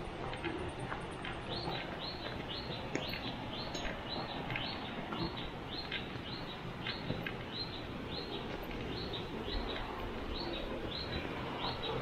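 A bird calling in a long, regular series of short down-slurred notes, about two a second, over steady background noise.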